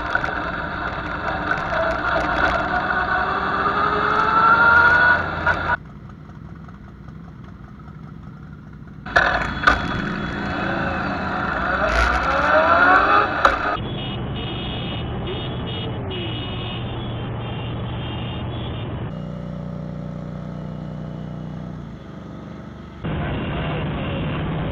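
Motorcycle engines in a large group ride, revving with rising pitch in two long pushes, then running more steadily with road noise. The sound changes abruptly several times where the footage jumps between shots.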